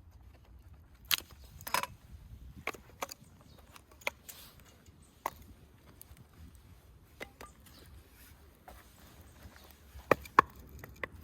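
Wood being chopped or split for a campfire: irregular sharp knocks about a second apart, with two loud strikes close together near the end.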